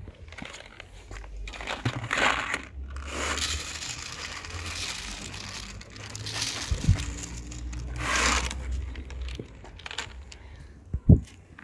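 Rustling and crinkling in several bursts, with a dull thump about seven seconds in and a sharper thump near the end.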